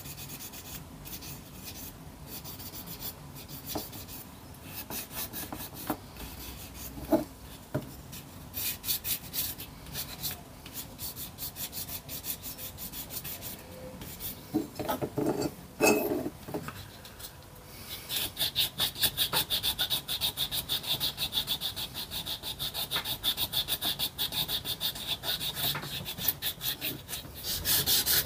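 Hand-held abrasive rubbed over the primed die-cast metal of a model truck, flatting the undercoat: scratchy rubbing strokes with a few knocks as the part is handled near the middle, then a fast, even back-and-forth rhythm from about two-thirds of the way in.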